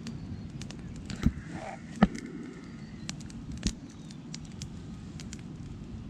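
Small campfire of dry twigs crackling, with scattered sharp pops; the loudest come about a second in, two seconds in and near four seconds.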